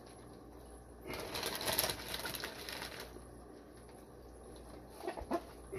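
Plastic fish bags being handled, rustling and crinkling for a couple of seconds, with a few soft clicks near the end.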